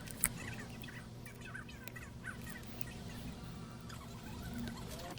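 Faint, quick bird chirps, repeated over and over, above a steady low electrical hum, with one sharp click about a quarter second in.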